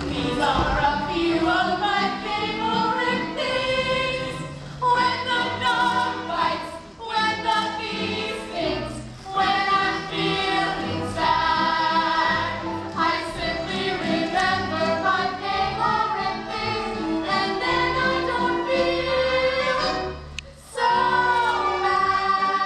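Young cast members of a stage musical singing a song together as a group, in full voice, with a short break in the singing near the end.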